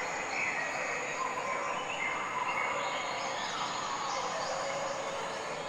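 Steady hissing background with short chirping bird calls gliding over it.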